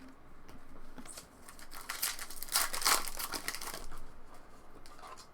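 Plastic trading-card pack wrapper crinkling and tearing as it is ripped open, loudest in the middle.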